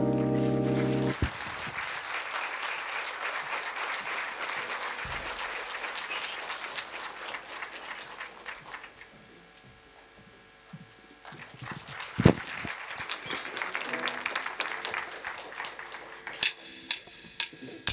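Audience applauding as the band's last chord cuts off about a second in; the clapping thins out halfway through and swells again. Near the end come four sharp, evenly spaced clicks.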